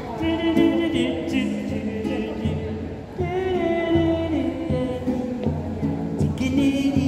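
A man singing in long, wavering held notes while playing a nylon-string classical guitar, in two phrases with a short break about three seconds in.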